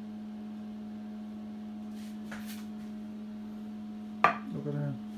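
A single sharp knock a little after four seconds in, from a plastic serving spoon against a glass baking dish, over a steady low hum. A fainter scrape comes about two seconds in.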